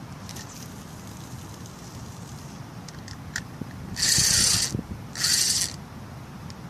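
A fishing reel ratcheting in two short bursts, each about half a second, a little over a second apart.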